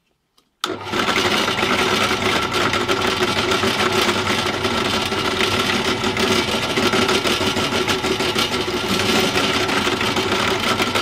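Bench drill press switched on a little under a second in and running steadily, a motor hum with a steady whine, as its thin twist bit drills through a small wooden ball.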